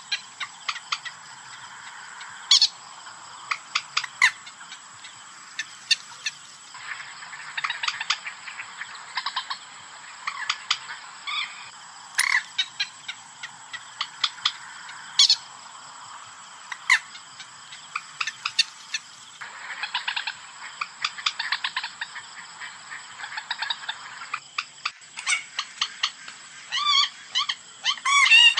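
Common moorhen (mandar batu) calls in a lure recording: short, sharp call notes repeated at irregular intervals, with a quicker run of calls near the end, over a steady background hiss.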